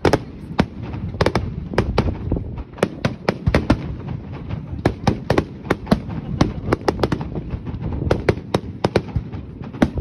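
Fireworks display: aerial shells bursting one after another, many sharp bangs at irregular intervals, some in quick clusters, over a continuous low rumble.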